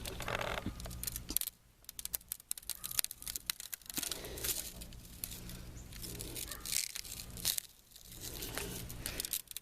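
Crunching footsteps on ice-crusted snow, an irregular run of crackles broken by two short pauses.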